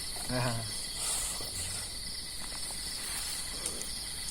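Night insect chorus, mostly crickets, a steady high chirring throughout. A short human voice sounds about half a second in.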